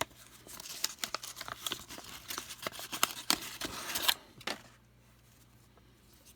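Trading card pack wrapper crinkling and cards being handled: a dense run of crackles and small clicks that stops about four and a half seconds in.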